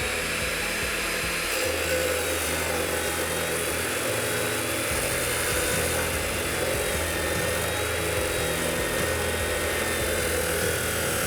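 Ridgid 14-inch abrasive chop saw running steadily, its abrasive wheel grinding through cast iron pipe with a high whine and a hiss. The whine sags slightly in pitch partway through.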